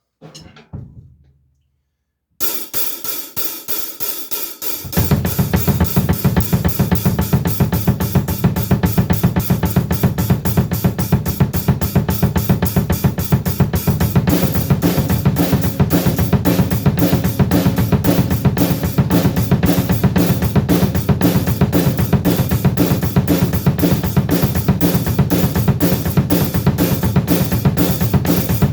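Acoustic drum kit with double bass drums being played in a warm-up groove. After a few opening hits, a fast, continuous double bass drum pattern starts about five seconds in and runs under snare, hi-hat and cymbals.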